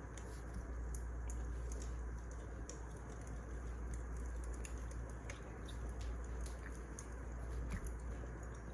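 Wood fire crackling: irregular small pops and snaps over a steady low rush of burning logs.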